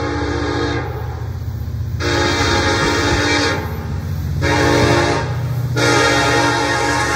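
Norfolk Southern EMD SD70ACe diesel locomotive's multi-chime air horn sounding repeated blasts for a grade crossing. One blast ends about a second in, two more follow, and a last one starts near the end and is still held at the close, over the steady low rumble of the approaching diesel.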